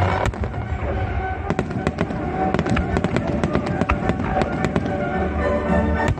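A fireworks display: rapid, irregular sharp bangs and crackles from bursting shells, laid over music.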